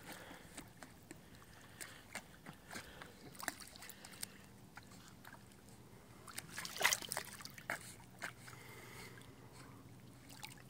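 Quiet lapping and sloshing of lake water close by, with scattered small splashes and a brief cluster of louder splashing about seven seconds in.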